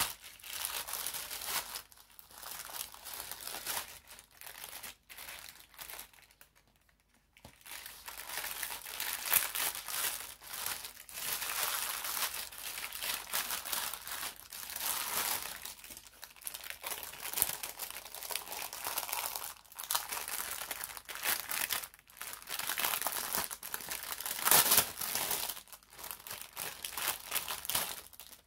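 Plastic packaging crinkling in hands as a parcel is unwrapped and pulled open: a light-blue outer wrapping, then a black plastic mailer bag, then a clear plastic bag. Near-continuous rustling in uneven bursts, with a short lull about seven seconds in.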